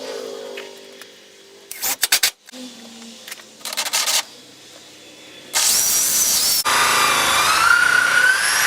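A few short bursts, then about two-thirds of the way in a power drill starts and runs steadily with a whine that rises and falls, drilling a pilot hole in wood.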